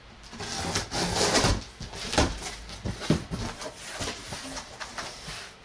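Packing tape on a cardboard box being slit with a blade, a scraping rasp, followed by the cardboard flaps being pulled open with rustling and several sharp knocks.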